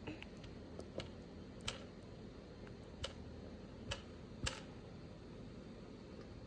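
About six light, sharp clicks and taps, irregularly spaced, over a steady low background hum.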